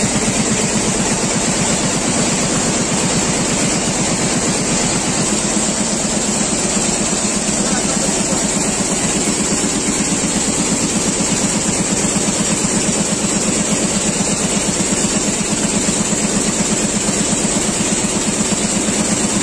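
Multi-needle shuttle quilting machine running steadily, its rows of needles and shuttles stitching at a fast, even rhythm over a steady high hiss.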